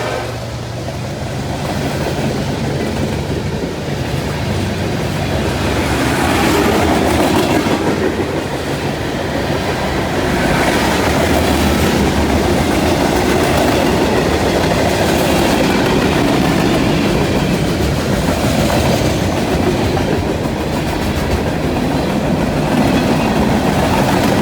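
Freight train cars rolling past, a steady loud rumble of steel wheels on rail with clickety-clack over the rail joints.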